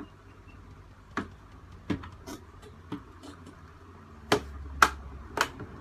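Plastic casing parts of an OlMaster laptop cooler being pressed together by hand: scattered light clicks, then three sharp, louder snaps near the end as the last part snaps into place.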